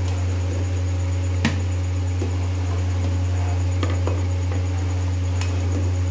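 A spoon clinking against a metal cooking pot as soup is stirred continuously while cornflour thickens it: a handful of scattered clinks, the sharpest about one and a half seconds in. A steady low hum runs underneath.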